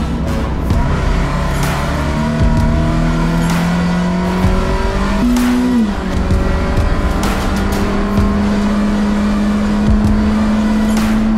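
Scion FR-S race car's 2.0-litre flat-four engine pulling on track, heard from inside the cabin: the revs climb steadily, change quickly at a gear shift about five to six seconds in, then climb slowly again.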